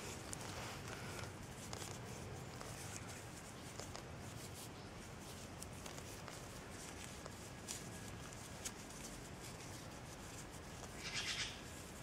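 Faint rustling and small clicks of hands working a cord snare among dry leaves, with a brief louder rustle about eleven seconds in.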